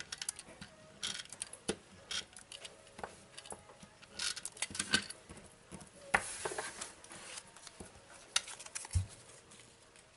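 Small cardstock pieces being handled and set down on a tabletop: irregular light taps, clicks and short paper rustles, with a longer rustle about six seconds in and a soft thump near the end.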